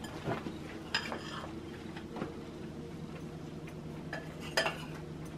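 A few light clinks and knocks of a spoon against a bowl and a saucepan as roasted barley flour is spooned into the porridge pot, over a low steady hum.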